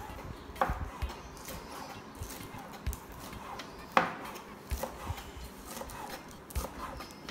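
Kitchen knife chopping centella leaves on a plastic cutting board: irregular taps of the blade on the board, with one louder knock about four seconds in.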